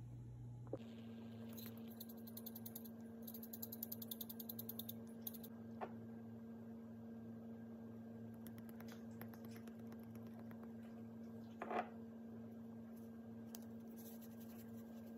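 Faint, fast rattling of dried herbs shaken from a spice jar into a small bowl, over a steady electrical hum; two short knocks come later.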